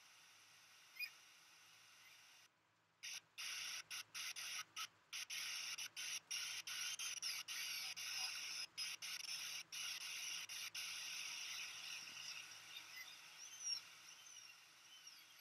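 Rushing water of a waterfall, heard as a thin hiss that grows stronger about three seconds in and keeps cutting out for split seconds, with faint high chirps over it.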